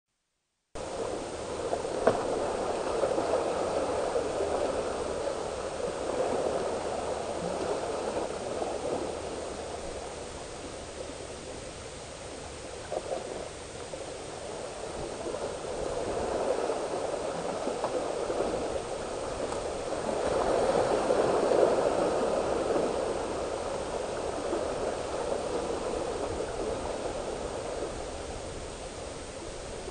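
Small sea waves washing and splashing against the boulders of a rock breakwater, swelling and ebbing every few seconds. One sharp click about two seconds in.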